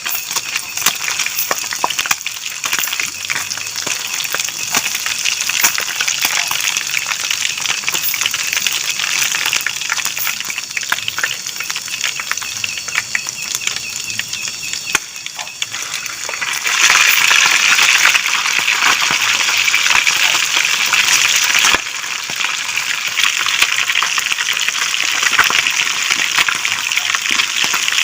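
Fish frying in hot oil, a dense steady sizzle with rapid spitting crackles that swells louder for a few seconds past the middle.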